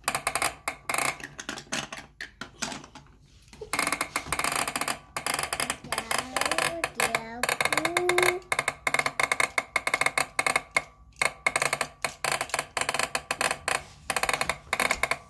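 Plastic manual toy car track mechanism being worked by hand, giving fast, uneven rattling clicks from its crank and gears. A child's voice briefly vocalises over the clicking in the middle.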